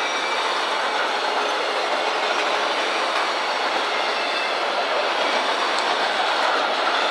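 Autorack freight cars rolling past: steady, loud noise of steel wheels running on the rails.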